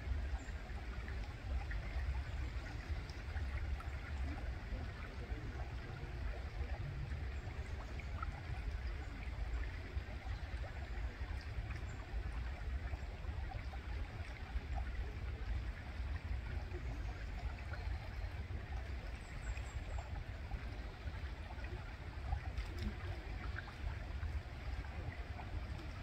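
Shallow river water running and rippling over stones in a steady babble, with a constant low rumble beneath it.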